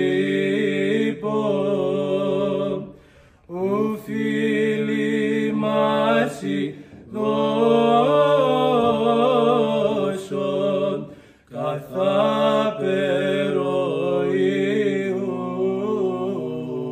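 Men chanting an Orthodox liturgical hymn in long, held phrases, breaking off briefly for breath about three seconds in and again about eleven seconds in.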